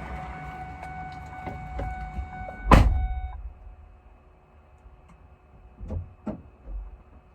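A truck door shuts with one loud slam about three seconds in. Before the slam there is a steady hum with fixed tones, which stops just after it. A few soft thumps follow near the end.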